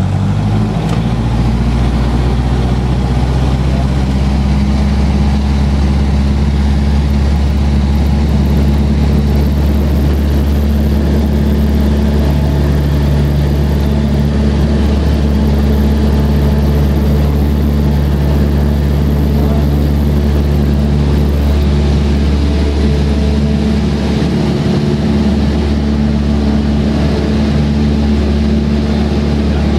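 Cessna 172's piston engine and propeller at takeoff power, heard from inside the cabin: a loud, steady drone that rises in pitch about a second in, then holds through the takeoff roll.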